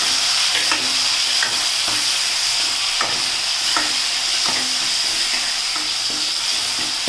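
Shallots, garlic, curry leaves and tomato sizzling in hot sesame oil in an aluminium kadai, stirred with a metal ladle that scrapes and taps the pan about every second.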